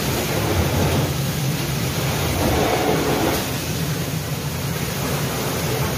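Fire tender's engine driving its water pump at pressure: a steady low rumble with a constant rush over it.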